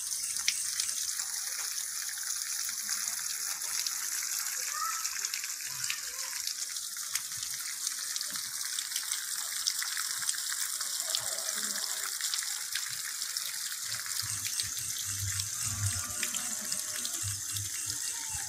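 Water from a newly drilled borehole well pouring in a steady stream out of the outlet pipe and splashing onto the stones and wet ground below.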